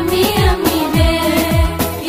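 Women's voices singing a qaswida into microphones over a backing track, with a steady beat of deep drum hits that each drop in pitch, about three a second.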